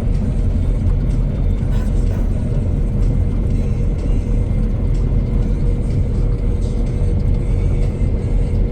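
Tractor engine running steadily under load while mowing, a deep rumble with a constant whine over it.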